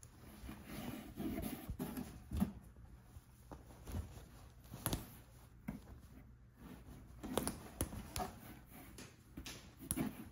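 Cloth rustling as a jacket is handled and turned over by hand, with scattered soft knocks and clicks.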